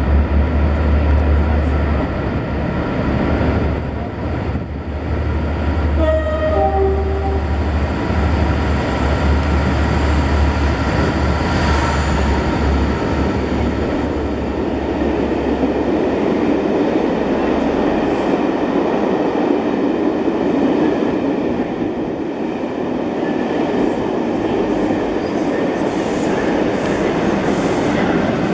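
Class 57 diesel locomotive with an EMD two-stroke V12 engine passing close by with a strong low engine throb, then the rush and rattle of the coaches' wheels as the train goes past. About six seconds in there is a short run of falling tones.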